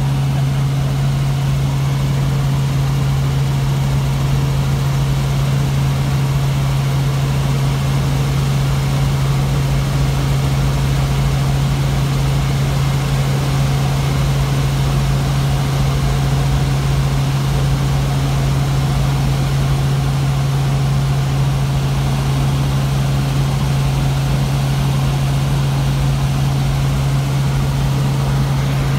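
Helicopter cabin noise in level flight: the engine and rotors make a loud, steady drone, led by a low hum that holds one pitch.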